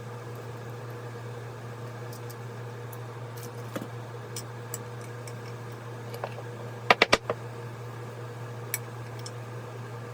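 Hand work on chainsaw crankcase parts: a few light clicks and ticks, then a quick run of four sharp metallic taps about seven seconds in, over a steady hum like a shop fan.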